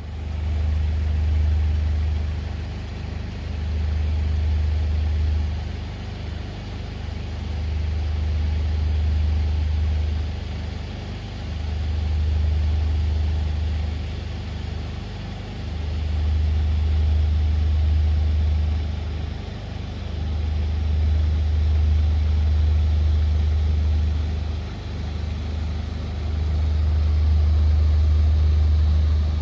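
Diesel engines of a towboat pushing barges: a deep, loud drone that swells and eases every two to three seconds.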